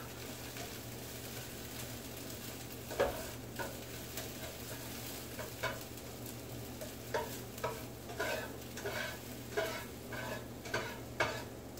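Onions sizzling in a frying pan, with a spatula scraping and stirring them in short strokes that come more often from about three seconds in. A steady low hum runs underneath.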